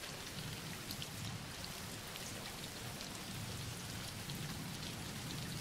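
Faint, steady background recording of falling rain, an even hiss with scattered small drop ticks and a low rumble underneath.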